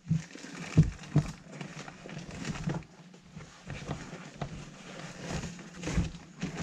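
Rustling and crinkling of a Recaro Trophy seat's fabric cover and foam being handled and pulled apart, with a few light knocks, two of them about a second in and one near the end, over a low steady hum.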